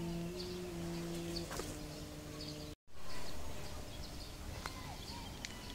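Outdoor ambience with small birds chirping. Through the first half, clear held notes sound, stepping from one pitch to the next. About halfway through the sound cuts out for an instant, then the chirping goes on more faintly.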